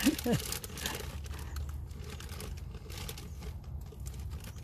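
Clothing rustling and crinkling against the camera microphone as the hoodie brushes past it, over a low steady rumble. A brief voice sounds right at the start.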